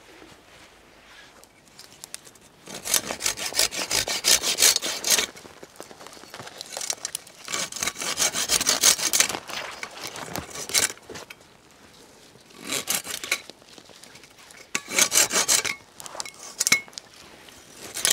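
Hand saw cutting through conifer branches, in several bouts of quick back-and-forth strokes with short pauses between them, as branches are cleared to open a path.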